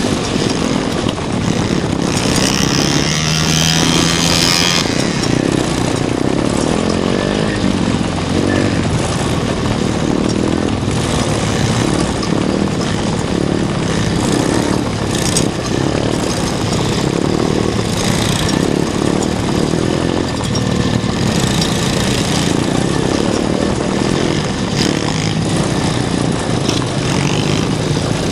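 Small 110cc single-cylinder four-stroke off-road engines, a kids' ATV and a pit bike, running while being ridden. Their pitch rises and falls repeatedly with the throttle.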